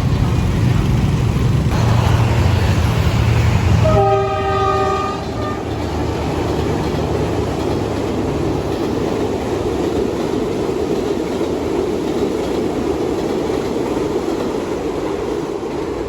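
D19E diesel-electric locomotive running with a heavy low hum, then sounding its horn once for about a second and a half, a steady chord. After the horn comes a steady rumble of the train running.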